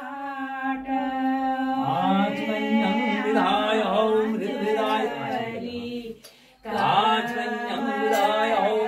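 Women's voices singing an unaccompanied Kumaoni mangal geet, a traditional devotional wedding song, with a brief break about six seconds in before the singing resumes.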